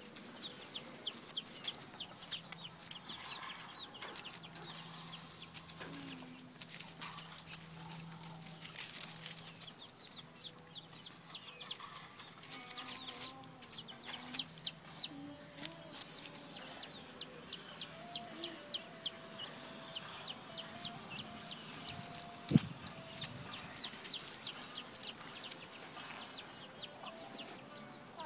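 Chicks peeping in quick runs of short, high chirps, several a second, stopping and starting. A single sharp knock about three-quarters of the way through is the loudest sound.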